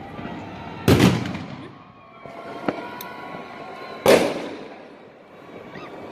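Fireworks going off across the city: two loud bangs, about a second in and about four seconds in, each followed by a rolling echo, with a smaller crack between them.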